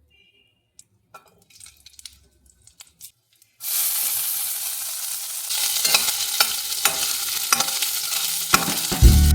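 A few faint clicks, then about three and a half seconds in food goes into hot oil and a loud sizzle starts suddenly, crackling and popping steadily as it fries.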